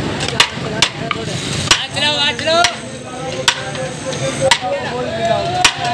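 Metal serving spoon clanking against the rim of a large metal biryani pot (degh) as rice is scooped out and served, sharp knocks about once a second, six or so in all.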